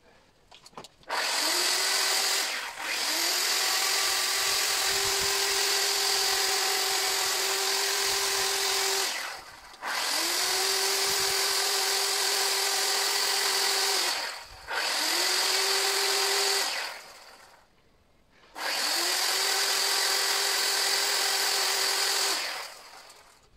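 Electric chainsaw carving a wooden sculpture, run in four bursts. Each burst spins up quickly to a steady high whine and then stops dead, with no idling between cuts.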